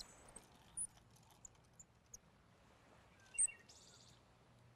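Faint outdoor background with scattered short bird chirps, the loudest about three and a half seconds in, followed at once by a brief buzzy trill.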